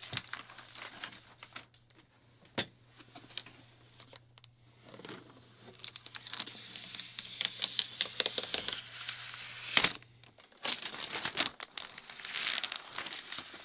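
Thin protective plastic film being peeled and crinkled off the aluminium case of a rack-mount Mac Pro, in uneven bursts, with two sharp knocks about two and a half seconds and ten seconds in.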